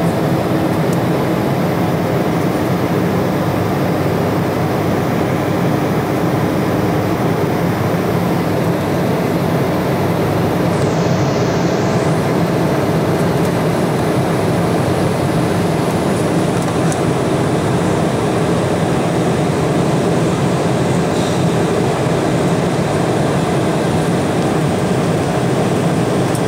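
Steady cabin roar of an Embraer 175 airliner climbing after takeoff: the noise of its turbofan engines and the airflow, heard from a seat over the wing, with a faint steady hum inside it.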